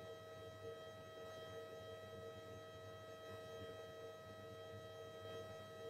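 Faint steady electrical hum with several thin, unchanging tones, as on a light aircraft's intercom audio feed; the engine barely comes through.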